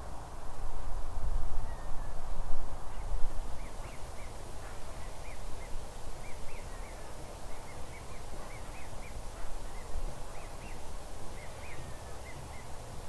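Waterfowl calling: many short, high calls in quick succession from about three seconds in, over an outdoor low rumble that is loudest for the first few seconds.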